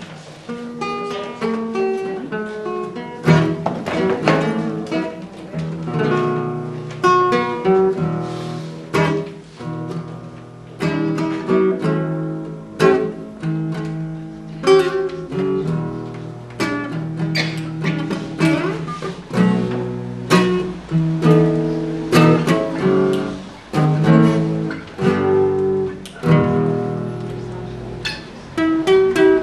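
Solo acoustic guitar played live, a run of plucked notes broken by frequent strummed chords.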